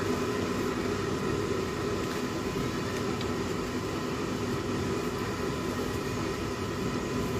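A steady machine hum holding a constant pitch, without a break.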